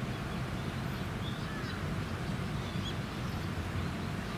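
A steady low hum with background noise, and a few faint, short bird-like chirps scattered through it.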